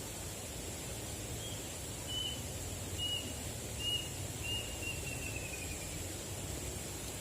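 A bird calling: four short, clear, high notes about a second apart, then a longer run of notes falling slightly in pitch, over steady outdoor background noise.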